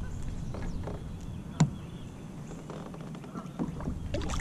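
Gear being handled on a plastic fishing kayak: one sharp click about one and a half seconds in and a few knocks near the end, over a steady low hum.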